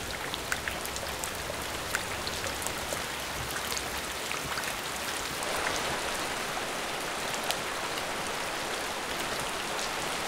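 Steady rain falling on standing water and a corrugated metal roof, with many sharp, separate drop hits over an even hiss.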